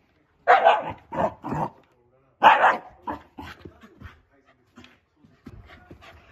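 Shiba Inu barking angrily: four loud, sharp barks in the first three seconds, then quieter, shorter barks and grumbles. It is frustrated by its favourite plastic bottle cap lying out of reach under the sofa.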